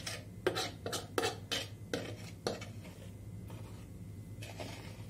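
Metal fork scraping and knocking inside a frying pan as pasta is cleared out onto a plate: about seven quick strokes in the first two and a half seconds, then two fainter ones.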